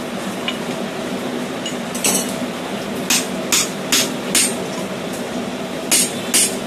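Hand-hammer blows on a punch driven into a red-hot steel hammer head that rests on a steel bolster plate, opening the eye: sharp metallic strikes. One comes about two seconds in, then a quick run of four, then two more near the end.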